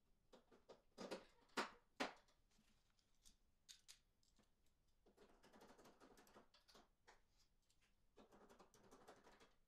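Faint clicks and knocks of hand work on a car's trunk lid at the licence plate light housing, with two sharper knocks about one and a half and two seconds in, and two stretches of soft rustling later on.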